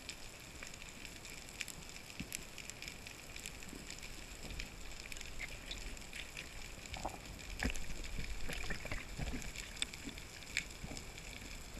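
Underwater ambience picked up by a camera in its housing on a reef dive: a steady hiss with many scattered crackling clicks. Somewhat louder knocks and rustles come in the second half as the diver moves.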